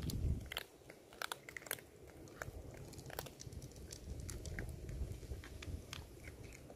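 Cats chewing and crunching food: irregular sharp crunches, denser in the first half, over a low rumble.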